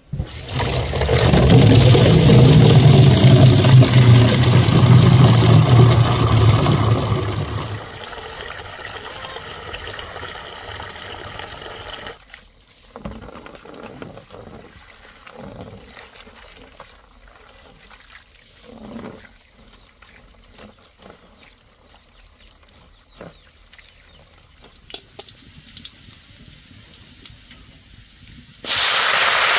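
Water running or pouring for about seven seconds, then quieter scattered knocks of handling. Near the end a loud steady hiss starts suddenly.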